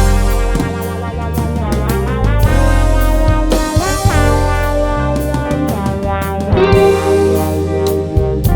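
Instrumental band music: a lead guitar line with bent, gliding notes over bass, a drum kit and keyboards.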